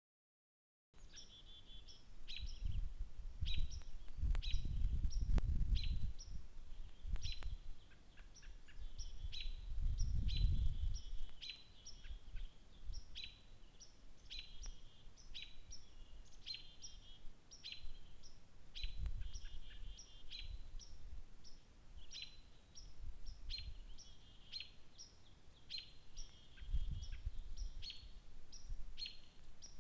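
An American robin and chickadees singing, short high bird notes repeating every second or so, with low rumbles a few times.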